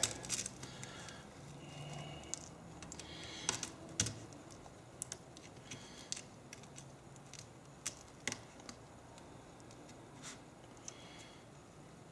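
Faint, irregular small clicks and ticks of fingers peeling black adhesive tape and working the cracked glass digitizer loose along the edge of an iPad 2's aluminium frame.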